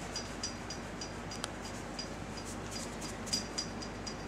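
Foam wax applicator pad rubbing wax onto a glossy painted motorcycle panel, with a few louder scratchy strokes. A faint, even ticking about four times a second runs under it.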